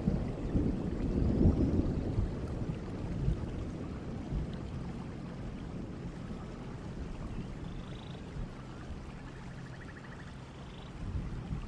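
Steady rain falling, with a low roll of thunder dying away over the first few seconds. A few faint high chirps come through the rain near the end.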